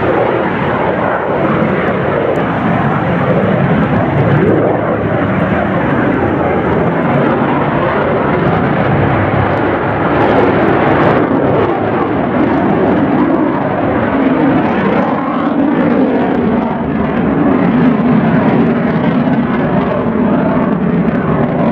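RAF Eurofighter Typhoon's twin Eurojet EJ200 turbofans giving a loud, steady jet roar as the fighter manoeuvres in its display, the pitch of the noise shifting slowly up and down.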